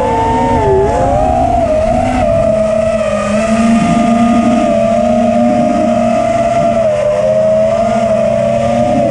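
FPV freestyle quadcopter's brushless motors and propellers whining in flight, a steady whine that wavers in pitch with the throttle and dips briefly about a second in.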